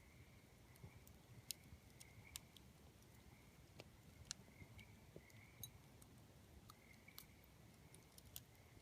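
Tree frogs calling steadily, a chorus of short repeated notes, with a campfire crackling in sharp pops every second or so.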